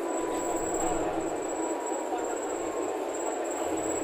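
Inside a Bonluck JXK6120L-NGV-01 natural-gas city bus on the move: a steady din of engine and road noise, with a thin high whine running over it.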